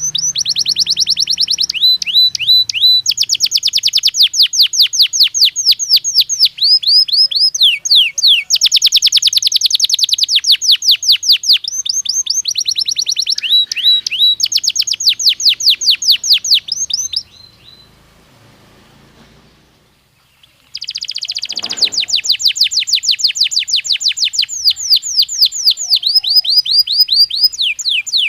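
Belgian canary singing: long trills of fast repeated sweeping notes. It falls silent for about three seconds past the middle, then starts another trill.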